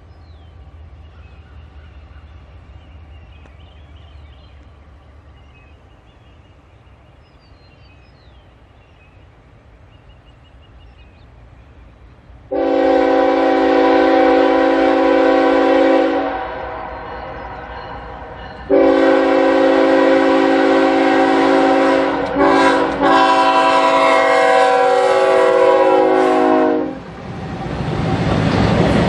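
Diesel locomotive's multi-note air horn sounding the grade-crossing signal, long, long, short, long, over the faint rumble of the approaching train. Near the end the train arrives and the noise of its wheels on the rails swells.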